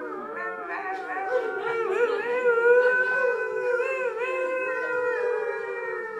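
A woman's voice howling like a wolf into a microphone: long wordless held notes that slide and waver in pitch, fading away near the end.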